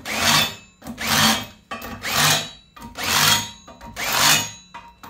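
Cordless drill turning a countersink bit into a drilled hole in steel plate, deburring it. The drill runs in short bursts about once a second, with the cutter scraping and chattering on the metal.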